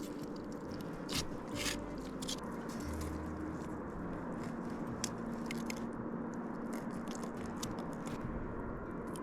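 Trout being cleaned by hand: wet crunching and scraping, with scattered sharp clicks.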